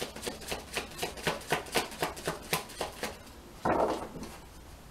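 A deck of oracle cards being shuffled by hand: a quick run of crisp card clicks, about four or five a second, that stops about three seconds in. A brief louder rustle follows about half a second later.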